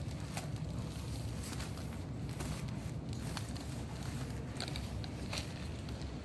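Scattered light clicks and crackles of packaging being handled, over a steady low rumble.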